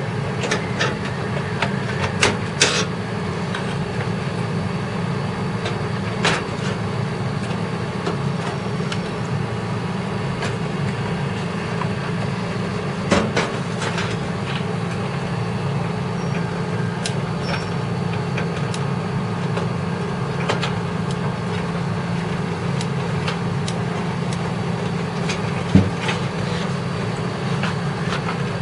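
Steady low mechanical hum with a few sharp clicks and knocks of metal computer parts being handled: a small cluster about two seconds in, others scattered later, the loudest near the end.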